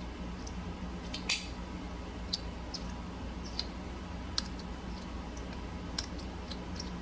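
Sharp, irregular clicks of a magnetic haptic slider fidget's metal plates snapping against each other as it is laddered, a click every half second to a second, over a faint steady hum.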